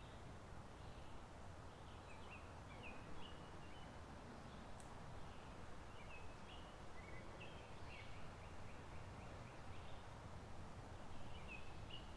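A creek running with a faint, steady rush, while small songbirds give short chirping calls in scattered bursts. There is a single faint tick about five seconds in.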